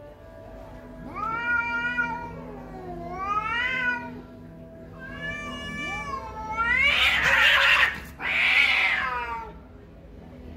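Two cats in a standoff yowling at each other: five long, drawn-out caterwauls that rise and fall in pitch, the last two louder and raspier. This is the threatening yowl of a territorial face-off between cats.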